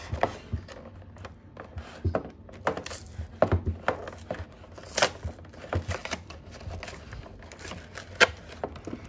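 Hands prying and peeling open a cardboard collection box sealed with strong adhesive: irregular clicks, scrapes and tearing of cardboard and glued paper, with two sharper clicks about five and eight seconds in.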